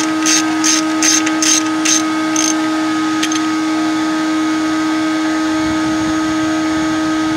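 Ratchet wrench clicking in short, even strokes, about two or three a second, as it backs out the 17 mm hex fill plug on the manual transmission. The clicking stops about two and a half seconds in. A steady hum runs throughout.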